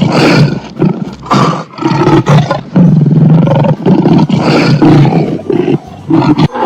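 Lion roaring, a run of loud roars one after another.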